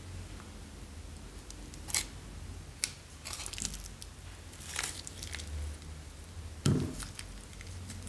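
Thin clear plastic bag crinkling and crackling in the fingers as slime is squeezed out of it, in scattered sharp crackles. The loudest sound is a crack with a dull thud near the end.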